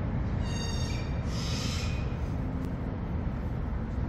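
Steady low rumble of city street traffic. About half a second in there is a brief high-pitched squeal, followed by a short hiss.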